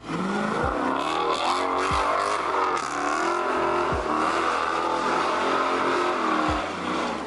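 Car engine revving hard, its pitch climbing at first and then wavering up and down as the throttle is worked through a drift. A few short low thumps sound underneath.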